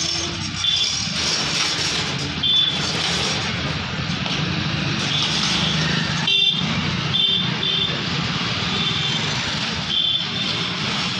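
Street traffic of motorcycles, scooters and light trucks running past, with short high beeps every second or so.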